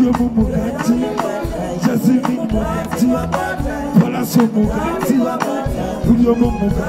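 Amplified live band music with a steady beat and bass, and a man singing over it into a microphone.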